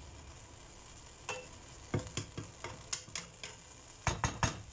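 Spatula stirring and scraping diced chicken, potato and carrot filling around a nonstick frying pan, over a light sizzle; the filling has cooked down with no liquid left. The scraping strokes come irregularly from about a second in, with a louder run of strokes near the end.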